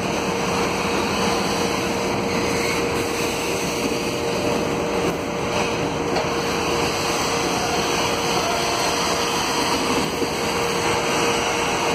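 Freight train hopper wagons rolling slowly along the rails: a steady rumble of wheels on track with a faint steady hum, which fades out near the end.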